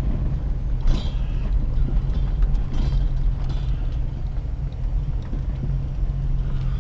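A vehicle's engine running with a steady low drone while driving, with brief hissing scrapes about one and three seconds in.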